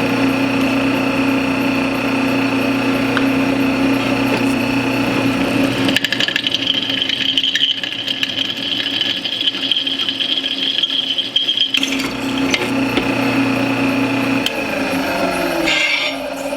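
Drill press motor running steadily while the bit drills into metal, with a high steady whine from about six to twelve seconds in. The motor spins down, falling in pitch, near the end.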